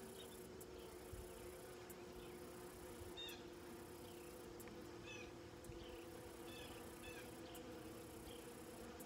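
Honeybees buzzing around an opened hive, a faint steady hum. A few faint, short, high chirps come through in the middle.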